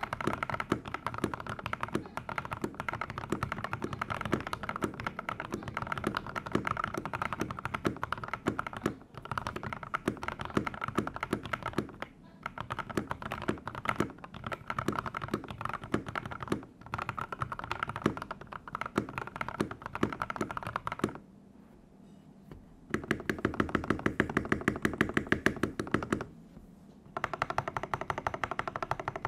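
Continuous typing on a Rexus Daxa M84 mechanical keyboard with lubed, filmed Gateron Yellow linear switches and XDA-profile keycaps, giving a deep thocky keystroke sound. About two-thirds of the way through, the typing stops for a couple of seconds, then comes back as a faster, louder run of strokes before a brief pause.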